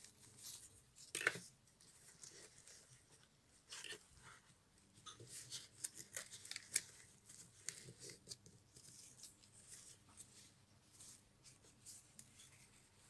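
Faint rustling and small clicks from hands handling a doll, its fabric clothes and small plastic accessories, with a sharper click about a second in.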